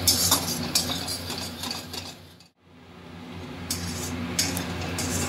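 Metal spatula scraping and stirring a thick spice paste around an aluminium kadai in repeated strokes over a steady low hum, while the masala is fried until the oil separates. The sound fades out about halfway through and picks up again a second later.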